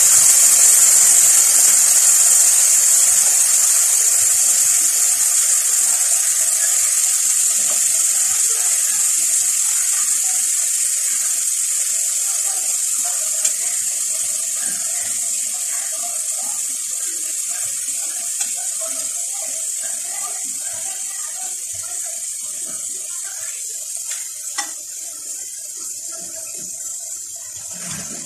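Onion masala sizzling loudly in hot oil in a kadai after liquid is poured in, a steady hiss that slowly dies down.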